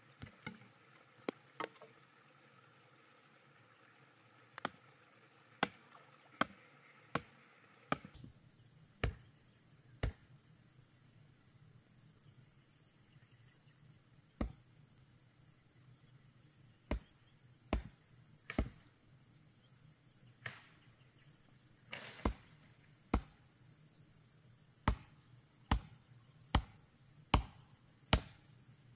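Irregular sharp knocks of a hand tool striking wooden posts, about one every second or two, over a steady high insect drone.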